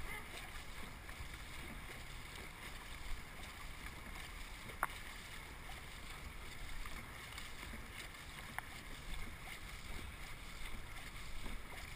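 Dragon boat under way with the crew paddling: a faint, steady rush of water and wind on the microphone, with a few faint clicks.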